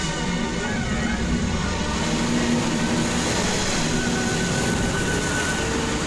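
Film sound of a storm on the water: steady rushing wind and surging waves, with held notes of music over them.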